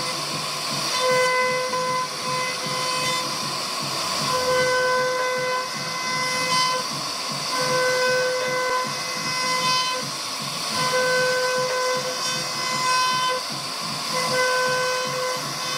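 CNC router spindle cutting wood: a steady hissing cut with a high whine that fades in and out every couple of seconds as the tool moves through the cut.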